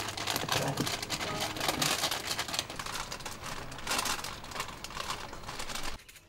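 Paper being peeled off a set maltose sugar painting, crackling and crinkling as it comes away from the hardened candy, then cutting off suddenly near the end.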